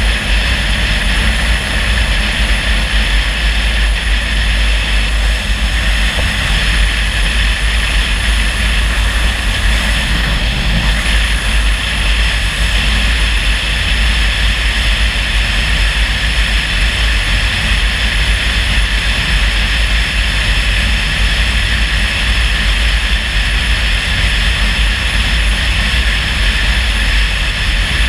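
Steady road and engine noise of a car driving, with a strong low rumble and an even hiss that does not change.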